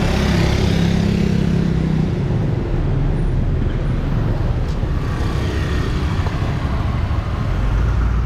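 Road traffic: motor vehicles running past, with a steady engine hum in the first two seconds and a low rumble throughout.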